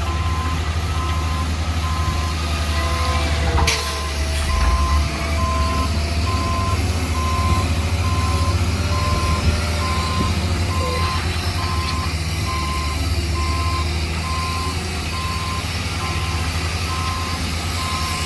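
A heavy construction vehicle's reversing alarm beeping steadily and evenly, over the low drone of its diesel engine, with one sharp knock about four seconds in.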